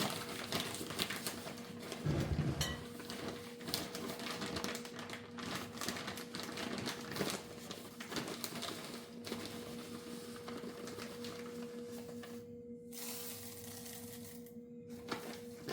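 Dense small clicks and rattles of dry cracked corn tipped into a bowl of soaking oats and worked in, thinning out near the end, over a steady low hum.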